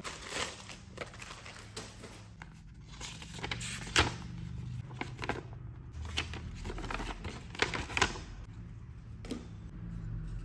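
A thin plastic bag crinkling as it is handled, then a folded paper leaflet rustling as it is opened and leafed through. Irregular crackles run throughout, with a few sharper ones.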